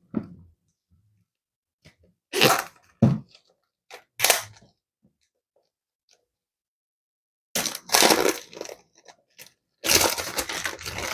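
Clear plastic wrapping being peeled off a cardboard product box and crinkled in the hands: a few short rustles, then two longer stretches of crinkling in the second half.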